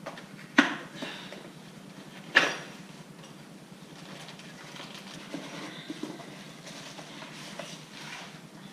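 Metal lift-kit parts being handled and set down: two sharp clanks about two seconds apart, then lighter clinks and rustling of packaging.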